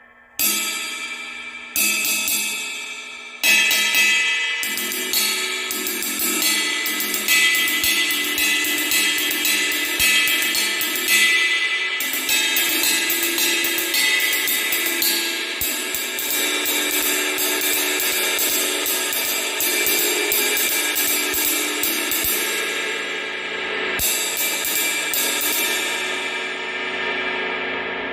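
24-inch Omete Lunar Ride cymbal being played: three single strikes left to ring, then a steady run of quick ride strokes over a long, shimmering wash. The strokes ease off briefly and pick up again near the end.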